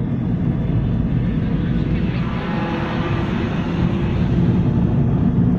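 A moving car's road and engine noise heard inside the cabin: a steady low rumble, with a faint hum rising above it in the middle.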